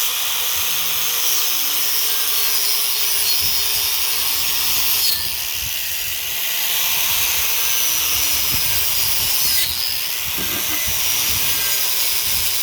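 Small electric angle grinder fitted with a wire wheel, running and brushing over metal to strip off light flakes: a loud steady hissing scrape over the motor's whine. The pitch dips briefly twice, about five and ten seconds in.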